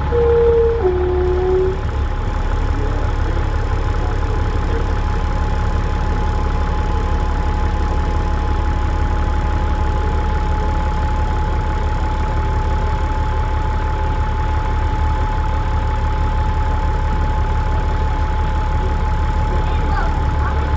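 Dennis Trident double-decker bus's diesel engine heard on board, running steadily as a low rumble with a constant high turbo whistle over it. In the first two seconds a short two-note tone steps down in pitch.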